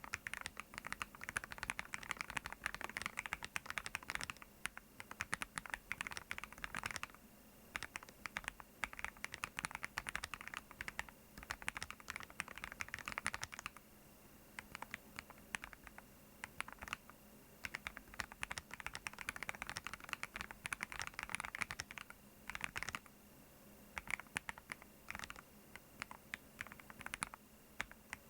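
Typing on a meteorite40 keyboard: quick runs of key clicks lasting a few seconds each, with short pauses between them.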